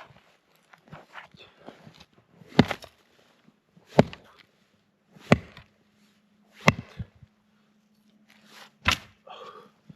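Five sharp knocks, about one every second and a half, with quieter crunching and scraping between them.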